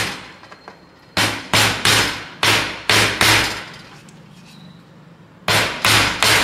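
A hammer striking an LM8UU linear bearing to drive it into a tight-fitting plastic carriage. It comes as a run of sharp strikes about three a second, then a pause of about two seconds, then the strikes start again near the end.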